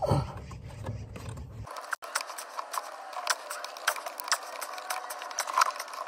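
Irregular sharp plastic-and-metal clicks and small knocks from hands working at a Fiat 500's clutch pedal switch and its bracket under the dash. A low rumble comes first, during roughly the first second and a half.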